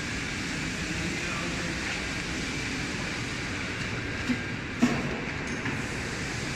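Steady rumbling machinery noise, with two short knocks a little past the middle.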